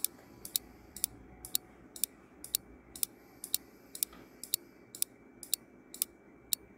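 Countdown timer sound effect: a clock ticking steadily, about two ticks a second.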